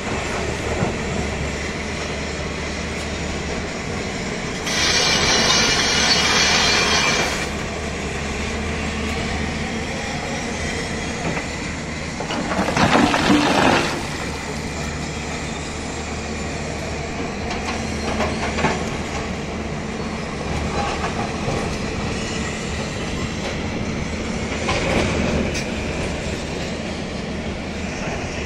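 Hyundai crawler excavator's diesel engine running steadily with clanking from its tracks and hydraulics. About five seconds in comes a couple of seconds of loud high hiss, and about thirteen seconds in a loud clatter of rock and dirt tipping from the bucket.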